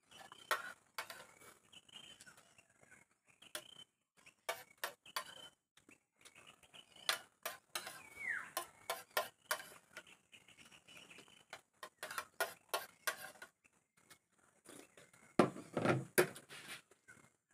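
Metal spoon clinking and scraping against a ceramic plate while eating, in many short separate clicks. Near the end comes a louder knock as the plate is set down on the table.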